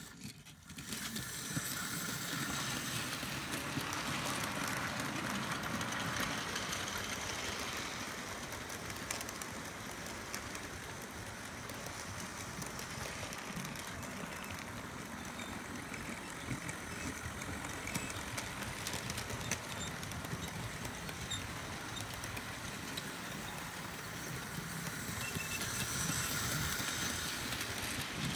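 Model railway trains running on the track: a steady whirr of small motors and wheels, with wheels clicking over rail joints. It gets louder near the end as a freight train of tank wagons and vans passes close by.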